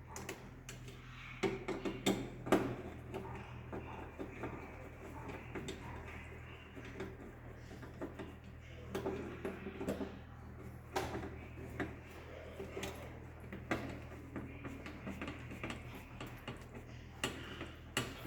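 Irregular clicks, taps and light rattles of hands, wires and a screwdriver at work while cable conductors are terminated in a distribution board, over a steady low hum.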